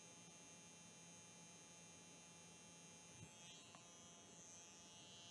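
Faint steady buzz of a permanent-makeup machine running while its needle works back and forth over a silicone practice lip.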